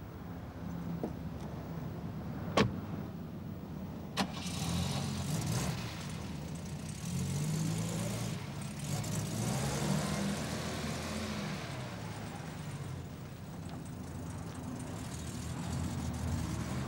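Mercedes-Benz saloon: a door shuts with one sharp, loud thud and a lighter clack follows about a second and a half later. The engine runs throughout and grows louder and fuller after about four seconds.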